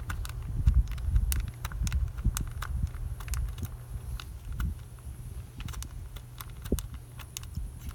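Irregular metallic clicks and knocks of a socket wrench working a small bolt loose on a motorcycle's headlight bucket, with the tool and parts handled close to the microphone.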